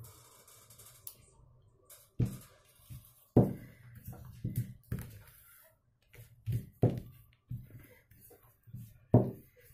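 Wooden rolling pin rolling out a round of dough on an oilcloth-covered table: irregular thumps and knocks as the pin is pushed back and forth and pressed down, about a dozen strikes, with soft rolling and scraping between.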